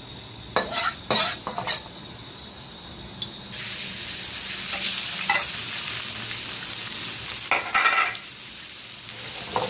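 A few sharp clinks of a utensil on a pan, then about three and a half seconds in a steady sizzle starts as beef sears in a pan with a little oil. A brief clatter of stirring comes near the end.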